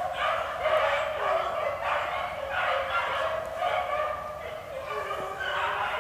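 A pack of beagles baying on a rabbit's trail: drawn-out hound calls from several dogs, overlapping and repeating about every half second to second without a break.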